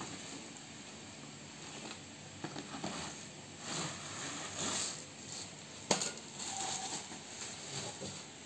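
Packaging being handled: a folded light stand slid out of its long cardboard box, its plastic wrapping rustling and crinkling, with one sharp click about six seconds in.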